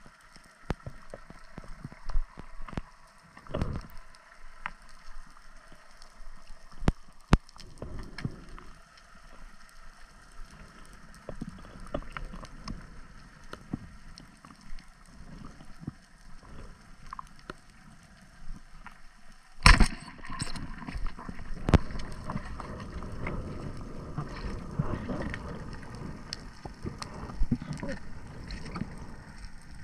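Underwater ambience heard through a camera housing on a speargun: scattered clicks and crackles over a quiet background, one sharp loud knock about 20 seconds in, then louder rushing and sloshing water as the diver swims.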